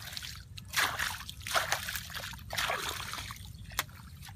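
Muddy ditch water splashing and sloshing as a wooden stick is worked through it, in three bursts about a second apart.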